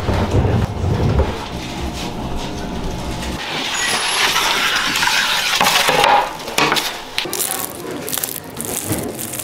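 Wood fire burning in a large wood-fired bread oven with a low rumble, then a peel scraping across the hot oven floor, and near the end crisp crackles as a flaky croissant is torn open.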